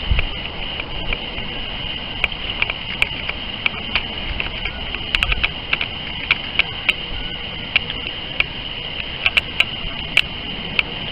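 Small lake waves lapping and splashing right at the microphone, close to the water line: a steady wash of hiss with many sharp little splashes and clicks, and a brief low rumble about five seconds in.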